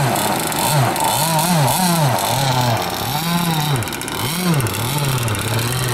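Small two-stroke combustion engine of an RC speedboat being revved up and down by throttle blips, its pitch rising and falling about ten times with short spells at a steady idle in between.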